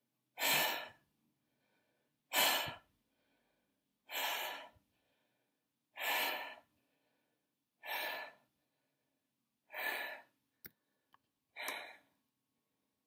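A man breathing out hard, seven long breathy exhalations about every two seconds, growing gradually fainter. Two small clicks near the end.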